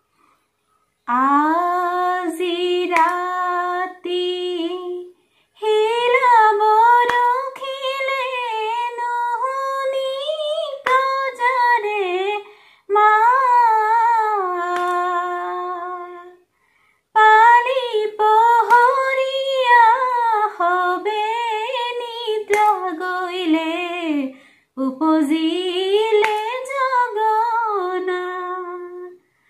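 A woman singing a dihanam, an Assamese devotional song, unaccompanied, in long drawn-out phrases with held, wavering notes and short breaks between phrases.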